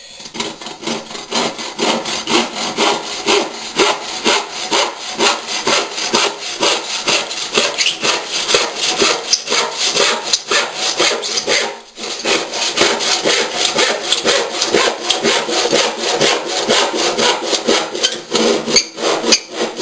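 Handsaw cutting into a length of skirting board in steady back-and-forth strokes, about two to three a second, with a short pause about twelve seconds in.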